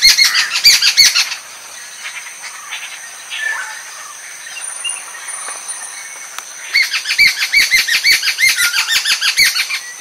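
A group of jungle babblers chattering: rapid runs of short, harsh repeated notes, loud at the start and again from about seven seconds in, with quieter scattered calls between.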